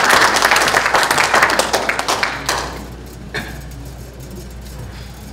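Audience applauding, the clapping dying away about three seconds in. A single knock follows in the quieter room.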